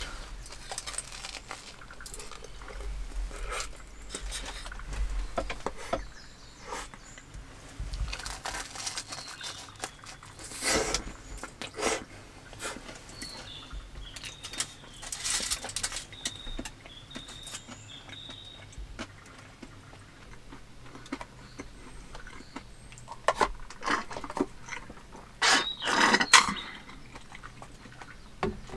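Crunchy chewing of a toasted hot sandwich, in short bursts. Near the end, aluminium foil crinkles loudly as it is folded over the leftover sandwich. Small birds chirp faintly now and then.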